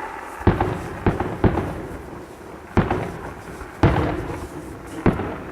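Fireworks exploding: six sharp booms at uneven intervals over about five seconds, each dying away in a short rumbling echo.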